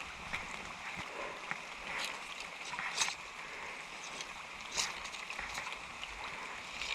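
Creek water running steadily over a riffle, with a few short, sharp splashes or knocks about two, three and five seconds in.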